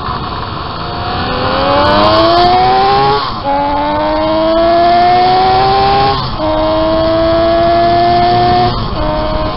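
Home-built three-cylinder engine of a 195cc Gillette special racing motorcycle pulling hard, its pitch rising steadily in each gear. Three upshifts break the climb, about three, six and nine seconds in, each with a brief dip and a drop in pitch.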